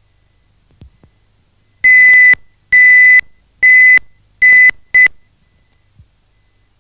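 Five loud electronic beeps at one high pitch. They get shorter and come closer together toward the end, the last one brief. A few faint knocks come before and after them.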